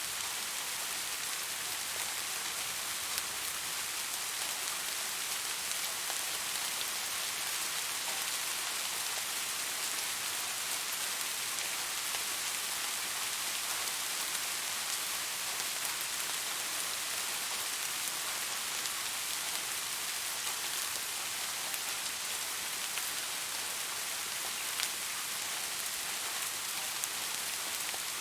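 Steady rain falling on a surface: an even hiss of many small drops, with occasional single louder drop ticks.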